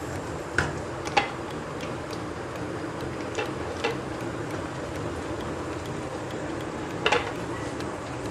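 Wooden spatula stirring thick butter chicken gravy in a non-stick pan, with about five sharp knocks of the spatula against the pan, the loudest about a second in and near the end, over a steady background noise.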